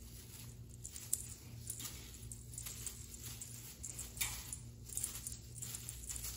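Faint, soft swishes and rustles of a feather-and-bead wand cat toy being waved, over a low steady hum.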